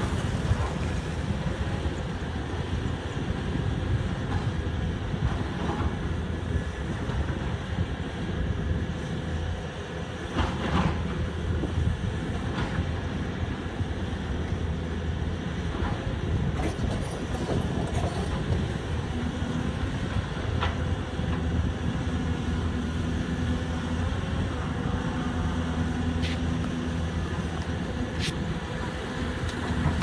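Caterpillar 320D hydraulic excavator's diesel engine running steadily as the machine works. Its hum grows stronger in the second half, and there are a few sharp knocks.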